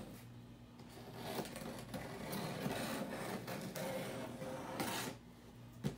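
A blade slitting the packing tape along the seam of a cardboard box: a continuous rasping scrape of tape and cardboard with small ticks, stopping near the end.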